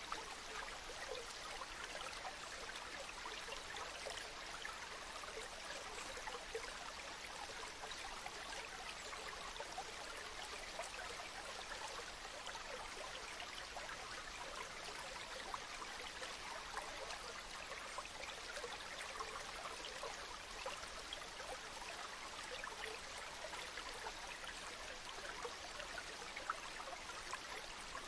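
Steady rain: a constant hiss of falling water dotted with countless small, sharp drop impacts.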